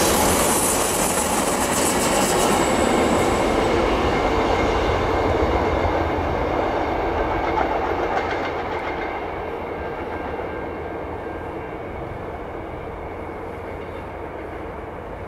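Budd stainless-steel passenger cars of a train rolling past, wheels rumbling and clicking over the rails. A bright hiss dies away in the first few seconds, and the whole sound fades steadily as the tail of the train moves off.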